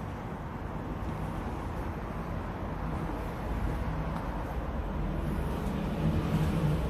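Steady traffic noise from a busy main road, with a vehicle's low engine hum growing louder toward the end.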